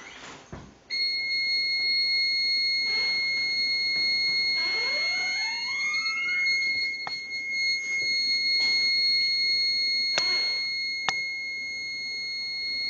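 House security alarm sounding a steady high-pitched tone that switches on abruptly about a second in. A short run of rising squeaks comes about five seconds in, and two sharp clicks come near the end.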